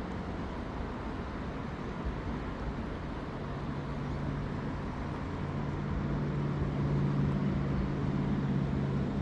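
A motor vehicle engine running, its steady hum building from about three seconds in and loudest near the end, over a background of traffic-like noise.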